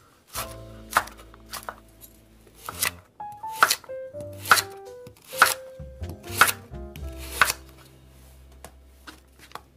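Kitchen knife slicing a raw carrot on a wooden cutting board: sharp knocks of the blade hitting the board, roughly one a second.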